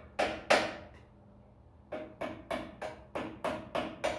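Repeated hammer blows on steel tractor parts, each giving a short metallic ring. There are two blows at the start, then after a short pause a steady run of about three blows a second.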